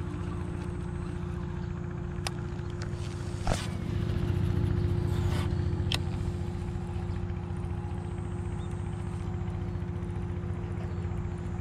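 An engine running steadily with a low, pulsing drone and a constant hum above it. A few sharp clicks come between about two and six seconds in, the loudest near three and a half seconds.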